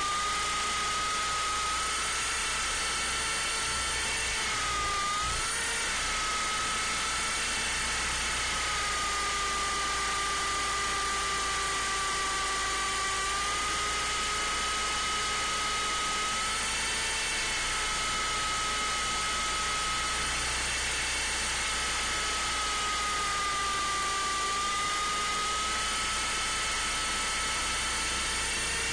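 MJX F45 RC helicopter in flight, heard from its own onboard camera: a steady high electric whine from its motors and rotors. The pitch wavers slightly up and down with the throttle, most noticeably about five seconds in.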